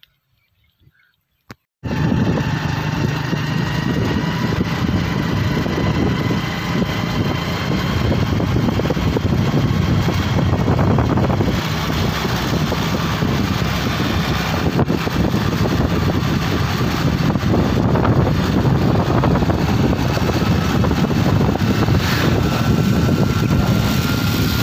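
Motor vehicle engine running steadily on the move, cutting in suddenly about two seconds in after near silence.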